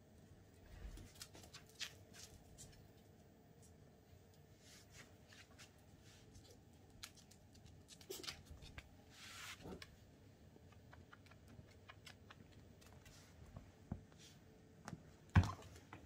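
Faint, irregular clicking and pattering of small dogs' claws on a tiled floor as they move about, with a short rustle about nine seconds in and a sharp thump shortly before the end.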